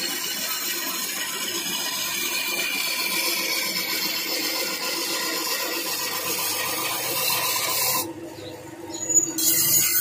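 Electric motor and belt drive of a sickle-serrating machine running, with a sickle blade pressed against its small toothing wheel: a steady scraping noise as teeth are cut into the blade's edge. The scraping drops away about eight seconds in while the machine keeps humming, and starts again a second later.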